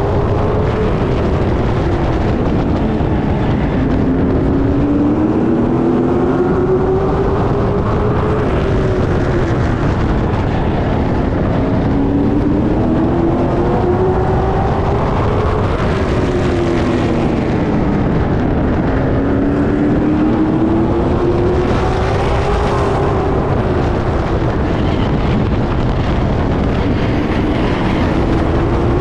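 Late model stock cars' V8 engines racing, several cars together. The engine pitch climbs and then drops in a repeating cycle about every seven seconds, as the cars accelerate and lift lap after lap.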